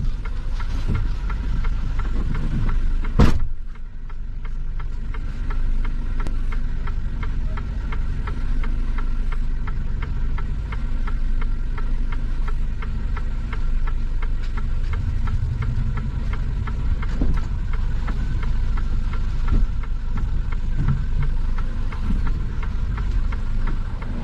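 Tractor-trailer truck's diesel engine idling steadily, heard from inside the cab. About three seconds in, the cab door slams shut once with a sharp bang.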